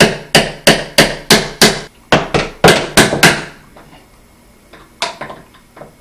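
Hammer tapping on diagonal cutting pliers clamped around a painted-over door hinge end cap, to break the cap loose from its paint. About ten sharp taps come quickly, roughly three a second, then after a pause a few lighter taps near the end.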